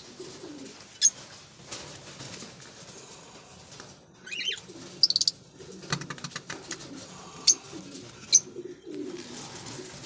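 Caged birds calling: low, wavering cooing runs on under a couple of short high chirps about four to five seconds in. A few sharp clicks from the cage or nest pot being handled.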